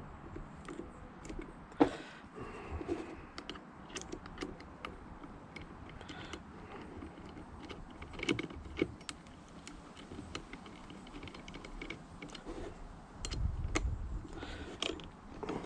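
Metal clicks and clinks of an old blade being fitted and tightened into an oscillating multi-tool's blade clamp, with one sharper click about two seconds in and a few dull knocks of handling later on. The tool is not running.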